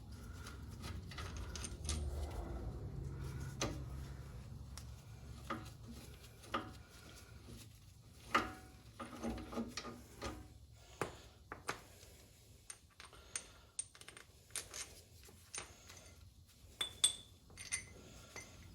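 Scattered light metallic clinks and knocks of hand tools and differential parts being handled while a Chrysler 8.25 rear axle's carrier is removed.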